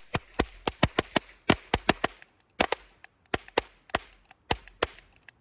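Small gunpowder charges going off in a quick, irregular string of sharp cracks, about three or four a second, starting all at once.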